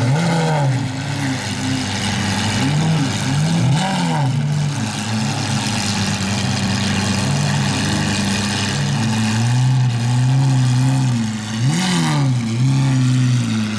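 Lamborghini Aventador SVJ's V12 engine idling with a steady drone, blipped several times in short rising-and-falling revs: a few near the start, two around three to four seconds in, and two more near the end.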